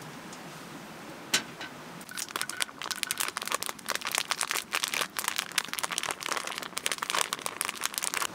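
A wooden bowl is set down on a metal camp table with one sharp knock about a second in. Then a dense run of irregular crinkling crackles follows as cottage cheese is crumbled into the bowl.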